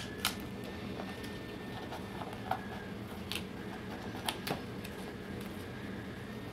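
Faint, scattered crackles and clicks of blue painter's tape and a clear label template being peeled off a model airplane's control surface, over a steady low hum.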